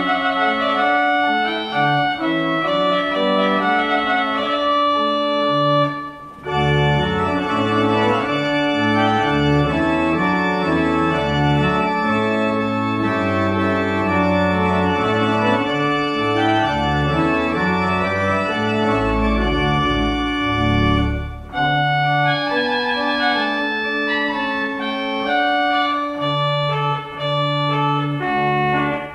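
Organ music: a slow piece in sustained chords, with a deep bass line entering about six seconds in and two short breaks in the playing.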